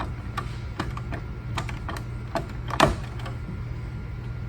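Small irregular clicks and ticks of a hand screwdriver working a Phillips screw loose from a sweeper's motor pinion and plastic brush holder, with one louder knock near three seconds in. A low steady hum runs underneath.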